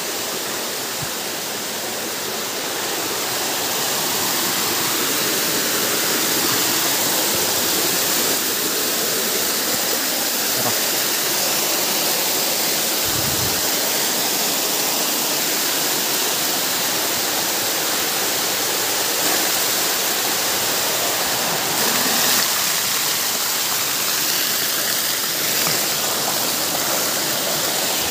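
Waterfall running strong: a steady, even rush of falling water.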